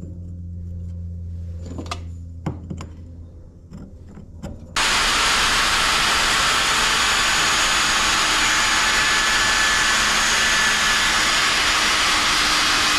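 Bosch 1601 router running at full speed while it cuts an aluminium part, a loud, steady noise that starts suddenly about five seconds in. Before it, a low hum and a few light clicks.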